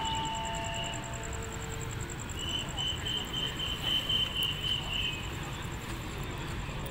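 Railway platform ambience: a steady, high, rapidly pulsing chirr like crickets over a low rumble. A few short steady tones sound in the first two seconds, and a pulsing higher tone runs through the middle.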